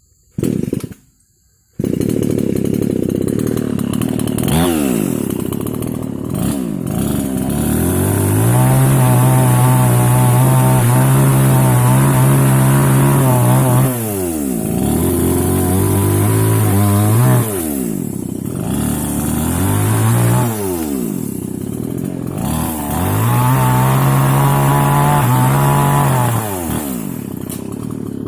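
Two-stroke mini chainsaw running, revved up again and again, with several full-throttle runs held for a few seconds each before it drops back to idle.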